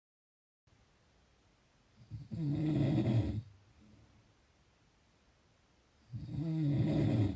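Someone asleep, snoring twice, about four seconds apart. Each snore lasts a second or more and has a low, pitched tone. At the very start the sound drops out completely for a moment.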